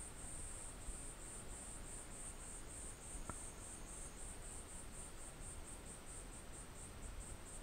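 A high-pitched insect chirping in rapid, even pulses, about four or five a second, over a faint low rumble.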